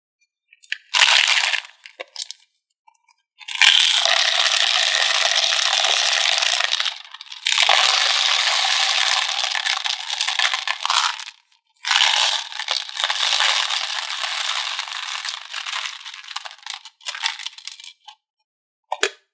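M&M's candies poured into a plastic tub, rattling and clattering. Three long pours follow a few short clatters, and scattered pieces drop near the end.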